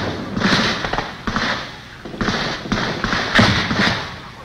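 Small-arms fire: several single shots at irregular intervals, each with a decaying echo, the loudest about three seconds in.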